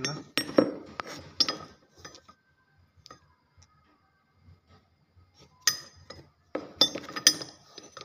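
Heavy 300 mm brass cable lugs strung on a wire clinking against each other as they are handled: sharp metallic clinks with a short ring, several in the first second and a half and another cluster about six to seven seconds in.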